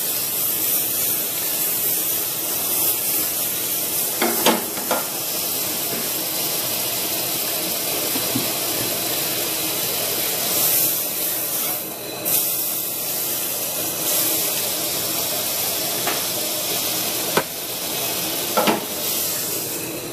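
Butter and pancake batter sizzling in a hot frying pan: a steady hiss with a few light knocks, about four seconds in and twice near the end.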